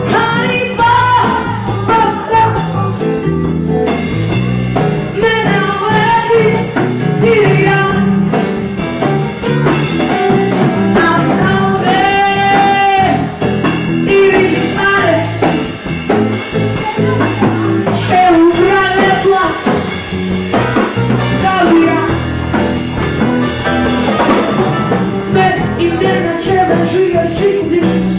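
A song with a woman's singing voice over band accompaniment with guitar, including one long held note about twelve seconds in.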